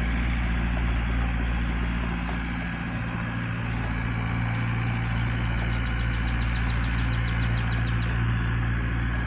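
Zoomlion excavator's diesel engine running steadily. A faint rapid ticking joins in for a couple of seconds in the second half.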